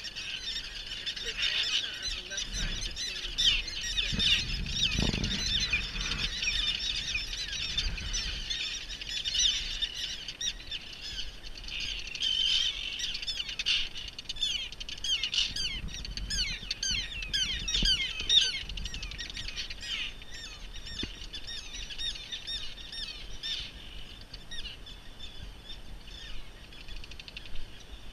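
A colony of common terns calling overhead, a dense chorus of many short overlapping calls that thins out in the last several seconds.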